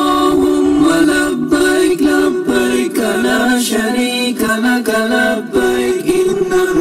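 Background music: unaccompanied vocal singing, a chant-like melody held in long, sustained notes.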